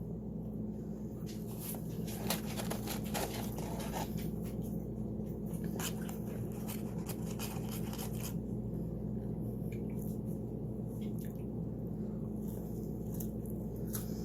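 Quiet chewing and eating noises, small clicks and soft rustles, mostly in the first half, over a steady low hum.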